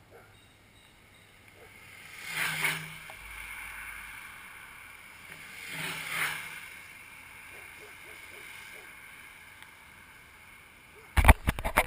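Longboards passing at speed, their wheels rolling on the road with a whoosh that swells and fades twice, about three and a half seconds apart. Sudden loud crackling bursts come near the end.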